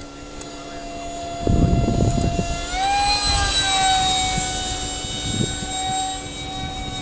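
Whine of a Kyosho Panavia Tornado model jet's 55 mm electric ducted fan, a steady high tone that rises in pitch and grows louder about three seconds in, then holds and eases a little. A low rumble runs underneath from about a second and a half in.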